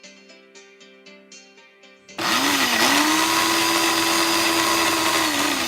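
Soft plucked-string background music, then about two seconds in a countertop blender switches on and runs loudly, blending a smoothie. Its motor whine settles to a steady pitch after a short spin-up and dips briefly near the end.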